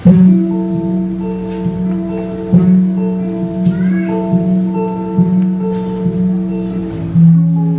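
Solo electric bass played fingerstyle: a low note re-struck about once a second under ringing higher notes that change in a slow pattern. The low note drops to a lower pitch about seven seconds in.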